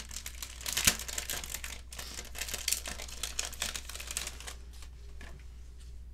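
Clear plastic packet crinkling as it is handled, a dense crackling with one sharper crackle about a second in, dying down after about four and a half seconds.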